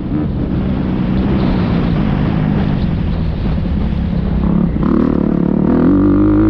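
Motocross bike engine heard from the rider's own helmet camera: off the throttle and running at lower revs through a corner, then opened up again about five seconds in, its pitch climbing as it revs hard down the straight.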